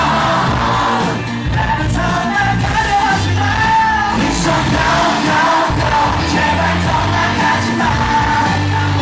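Live pop-rock band playing at full volume, recorded on a fan's camera: a male lead voice singing over electric guitar, bass and drums.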